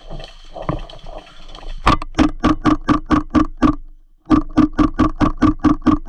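Airsoft electric gun firing two long strings of shots at an even, slowish pace of about four or five a second, each shot with a short whine from the gearbox. The first string starts about two seconds in; after a brief pause a second string follows.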